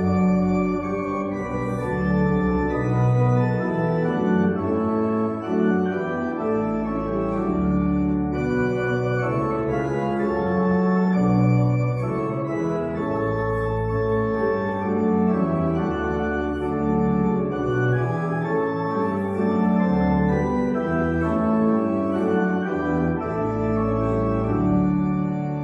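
Church organ playing sustained chords over a low bass line, the chords changing every second or two.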